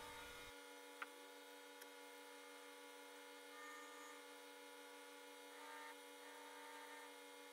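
Near silence: a faint steady hum, with one light click about a second in.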